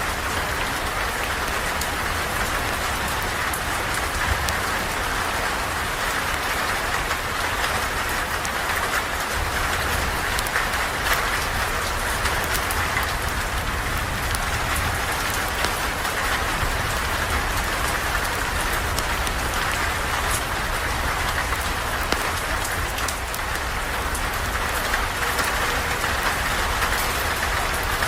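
Steady rain falling, an even hiss with a low rumble underneath and scattered fine ticks of drops.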